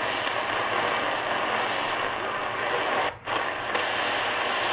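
Shortwave receiver's speaker giving out steady AM static with no station audible. The static cuts out briefly about three seconds in as the radio retunes to a newly keyed frequency, 9265 kHz, a part of the band that is dead at the moment.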